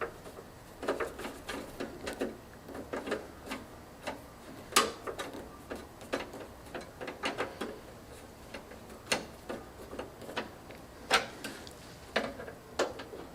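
Irregular small metal clicks and light knocks of screws being fastened by hand on a PC case, securing a graphics card.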